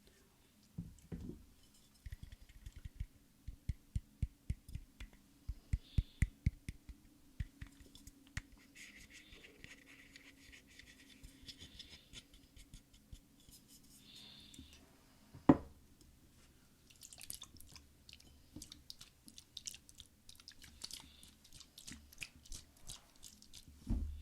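Close-miked ASMR trigger sounds: a run of quick soft taps, a single sharp knock about two-thirds of the way in, then dense crisp crackling and scratching.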